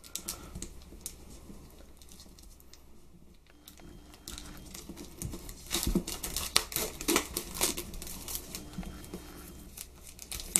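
Clear plastic shrink wrap being torn and peeled off a cardboard tablet box. Faint rustling for the first few seconds, then a run of sharp crackles from about halfway through.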